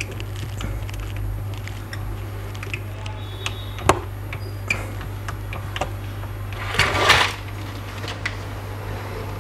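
Small clicks and taps of hands handling the plastic and metal parts of an open laptop chassis, with one sharp click about four seconds in and a brief scraping rustle about seven seconds in, over a steady low hum.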